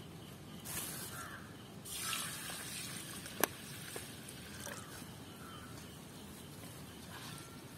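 Water poured over rice to soak it, splashing in two short spells, with a sharp click about three and a half seconds in.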